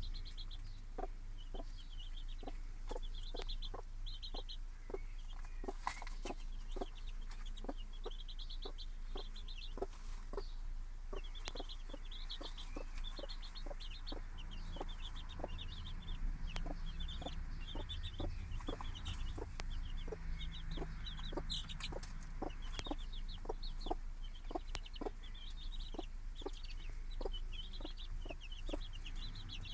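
Chicks peeping in quick runs of high chirps over a mother hen's soft, steady clucking, about two clucks a second. A steady low hum runs underneath.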